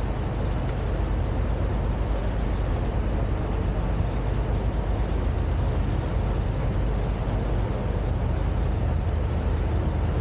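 Steady low rumble and rushing noise of a boat under way: engine drone mixed with the rush of water and air, unchanging throughout.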